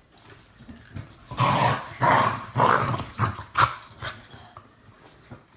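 Dog growling in a run of short, rough bursts during play-wrestling, loudest between about one and four seconds in.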